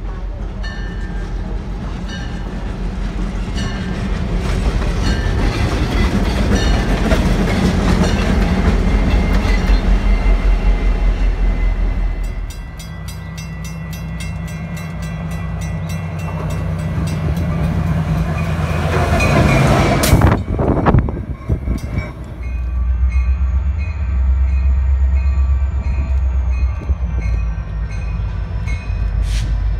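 Diesel locomotives running light, without cars, one after another in separate clips. Each gives a low engine rumble and regular clicking of wheels over rail joints, growing louder as it approaches. The sound changes abruptly about twelve seconds in and again about twenty-one seconds in.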